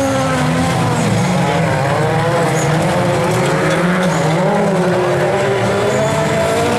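Several lightweight-class stock cars racing on a dirt track, their engines revving up and down as they accelerate and lift through the bends. The overlapping engine notes rise and fall without a break.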